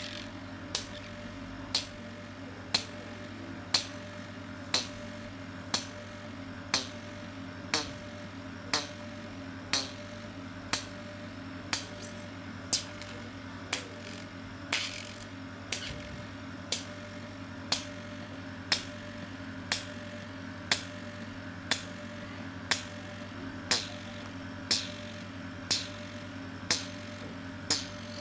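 GL3 oxygen facial machine running its pulsed oxygen-infusion mode: a sharp click about once a second, marking each pulse of oxygen through the handpiece, over the machine's steady hum.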